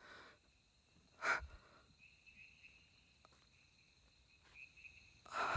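Near-quiet night air with faint steady high-pitched tones, broken by a short breath close to the microphone about a second in and another near the end.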